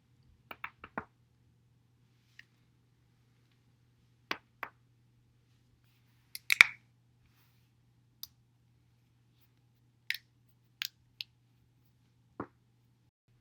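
Joints in the back cracking as a person rolls over a foam roller: a quick run of four pops near the start, then single sharp cracks every second or two, the loudest a little before the middle.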